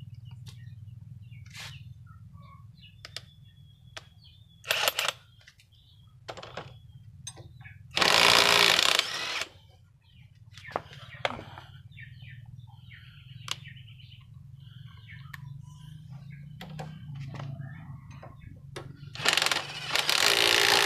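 Cordless brushless impact wrench hammering on a motorcycle's front axle nut in three bursts: a short one, then two longer ones of about a second and a half each. A low steady hum runs underneath.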